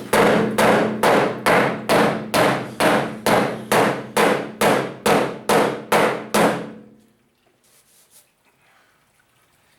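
Hammer blows on the steel bedside of a pickup being worked for a large dent: about fifteen even strikes at roughly two a second, with a metallic ring held under them. The blows stop about seven seconds in.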